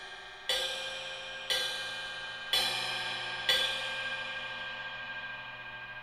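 Masterwork Iris cymbal struck on its edge with a drumstick four times, about once a second. Each stroke gives a very high ringing pitch, almost like a harmonic on a guitar, and the ringing hangs on and slowly fades.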